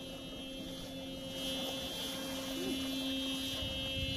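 A steady hum, low and even in pitch, with a set of fainter high steady tones above it over faint background noise.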